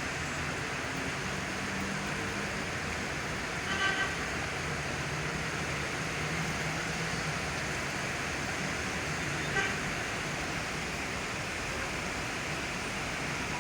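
Steady hiss of rain and passing traffic on a wet street, with a low engine hum underneath. A short car horn toot sounds about four seconds in, and a fainter one near ten seconds.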